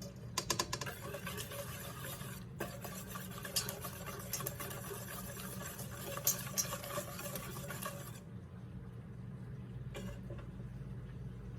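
A whisk stirring melted butter into beaten eggs and sugar in a bowl: quick, busy clicking and scraping strokes that stop about eight seconds in, with a few light taps later.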